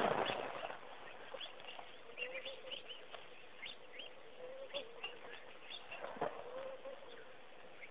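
Water splashing briefly at the start, then many short, high bird chirps scattered throughout over a faint, low wavering tone, with a single knock about six seconds in.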